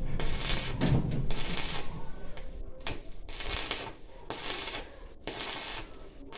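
Stick (arc) welding: the arc crackling and sizzling in short runs of about half a second, roughly once a second, broken off between runs.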